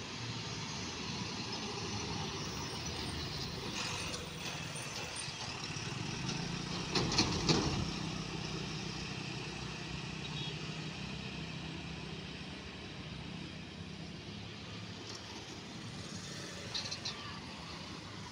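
Road traffic: a Tata tipper truck's diesel engine running steadily as it drives past, with motorbikes, loudest about seven seconds in. A car goes by near the end.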